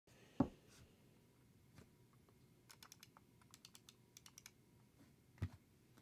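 Typing on an NK65 custom mechanical keyboard with lubed Gateron Oil King linear switches, an aluminum plate and PBT keycaps: a quick run of keystrokes in the middle, with two heavier low thumps, one near the start and one near the end.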